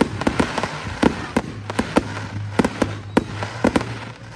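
Fireworks going off: an irregular string of sharp bangs and crackles, several a second, with a steady low hum underneath.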